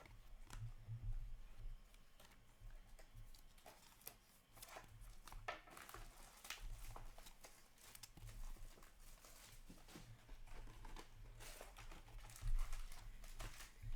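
Hockey trading cards and their plastic being handled: scattered crinkling rustles and light clicks, over a low steady hum.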